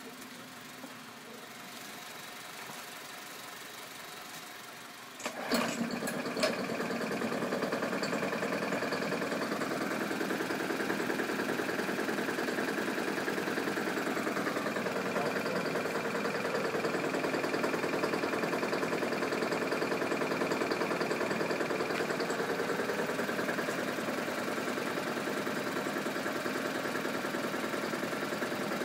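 Push lawn mower's small engine, running on HHO (hydrogen-oxygen) gas from an electrolysis cell, starts up about five seconds in after a faint steady hum, then keeps running steadily.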